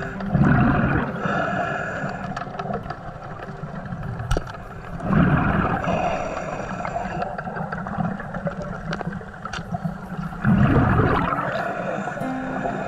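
Scuba-style regulator breathing underwater on a hookah air line: a loud rush of exhaled bubbles about every five seconds, three times, with a thinner whistling hiss from the regulator in between.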